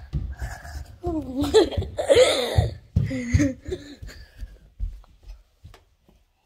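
A young girl's wordless vocal sounds, laughing and squealing, about a second in and again around three seconds, over thumps and rubbing from the phone being handled close to her face. The sounds die away after about five seconds.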